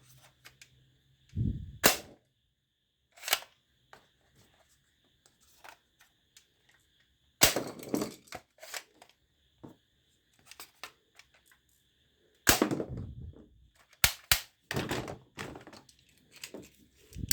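Toy guns being handled, cocked and clicked: irregular sharp snaps and clacks, some in quick runs, with a few duller knocks.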